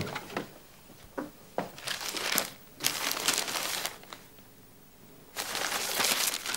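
Crinkling and rustling, like paper or plastic being handled, in several bursts: short ones early, then longer stretches, the longest near the end, after a sharp click at the very start.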